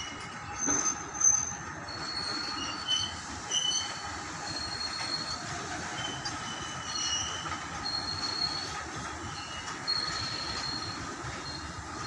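Freight train of loaded open coal wagons rolling past, a steady rumble of wheels on rail with short high-pitched wheel squeals coming and going; the loudest squeals come about a second in.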